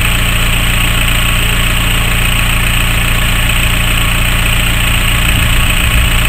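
Diesel engine of a miniature-railway locomotive running steadily with an even, low throb.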